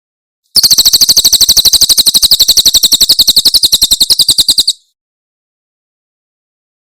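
Cililin bird giving a loud 'tembakan' burst: one very fast, high, rattling trill of about fourteen notes a second, lasting about four seconds and starting and stopping abruptly.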